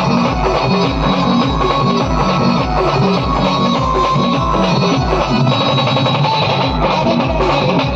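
Band music: a loud, steady drum beat about twice a second under a plucked, guitar-like melody line.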